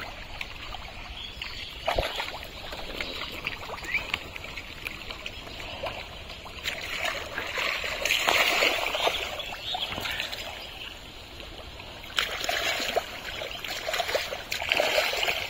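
Thick mud and muddy water splashing and sloshing as hands dig through a drained pond bottom and catfish thrash in the sludge. The splashing comes in uneven bursts, loudest about halfway through.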